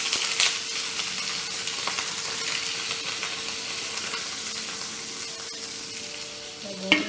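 Food tipped into hot oil in a non-stick frying pan, sizzling loudly at first and slowly dying down. A sharp clink sounds near the end.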